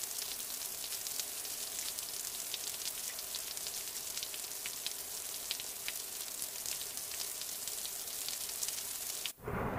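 Steady rain falling: an even hiss dotted with many fine drop ticks, cutting off suddenly near the end.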